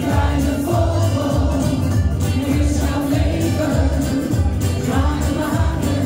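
A woman singing a Dutch pop song into a microphone over an amplified backing track with a steady beat, with other voices singing along.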